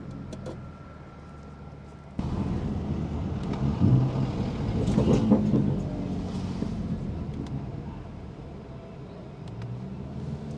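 BMW F80 M3's tuned twin-turbo inline-six running on the road, quiet off throttle at first, then picking up sharply about two seconds in as the throttle opens, before easing back off.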